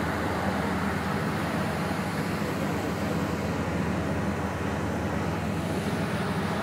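Tour ferry's engines running with a steady low drone, under an even rushing noise.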